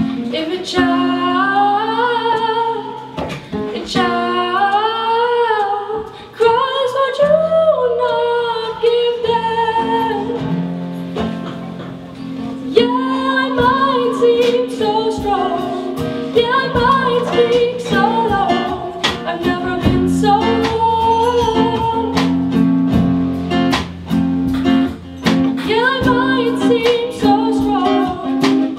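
A young woman singing a slow song to the accompaniment of a nylon-string classical guitar.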